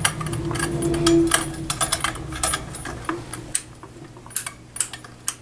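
A table lamp's switch is clicked over and over, a fast irregular run of clicks and then a few slower single clicks, while the lamp stays dark: no power is reaching it.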